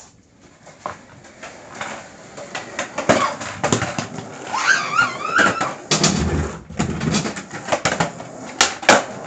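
Skateboard clattering and rolling, with irregular knocks and thwacks of the board, and a brief wavering voice about five seconds in.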